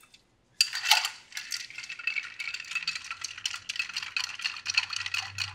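A bar spoon stirs ice in a cocktail mixing glass, a quick, continuous clinking and rattling of ice against glass that starts about half a second in. The cocktail is being stirred over ice to chill and dilute it.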